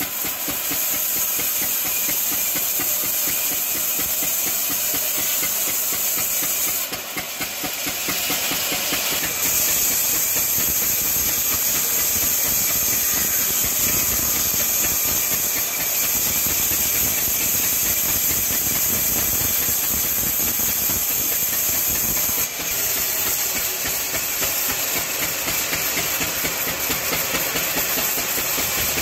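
Diesel-powered band saw running, its blade cutting lengthwise through a log with a steady high hiss over the engine's even, rapid beat. The hiss and level drop briefly about seven seconds in, then the cut carries on.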